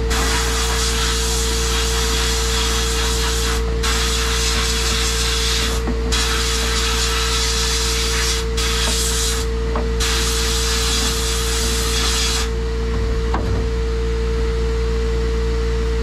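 Blast gun of a Harbor Freight sandblasting cabinet hissing as abrasive is blasted over a finned engine part, in long bursts broken by brief pauses where the trigger is let off, then stopping about twelve seconds in. A steady hum with a constant tone runs underneath.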